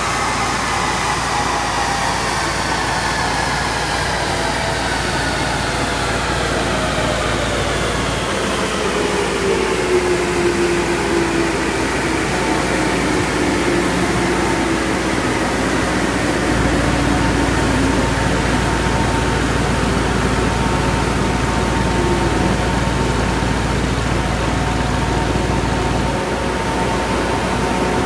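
Porsche Cayenne Turbo S E-Hybrid coasting down on a chassis dynamometer: a whine falling slowly in pitch over about fifteen seconds as the rollers and drivetrain spin down, over a steady rushing noise and a low rumble that shifts level a few times.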